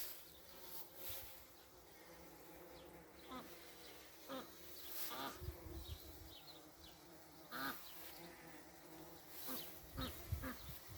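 Bumblebee buzzing steadily while it forages for nectar on mullein flowers. Short bird calls, likely ducks or geese, sound several times in the background.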